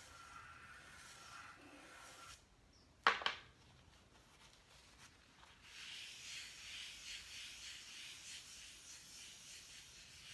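Chalk rubbing and scratching on paper as a small circle is traced, broken about three seconds in by one sharp tap, then several seconds of uneven, rhythmic rubbing strokes.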